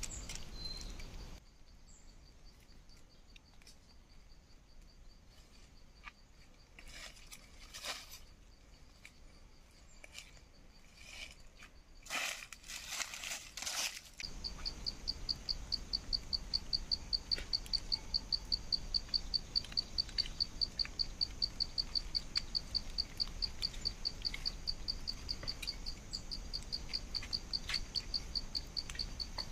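An insect chirps in a steady, high-pitched pulse, about three or four pulses a second, starting about halfway through. Before that, a quiet forest with a few brief rustles and crackles.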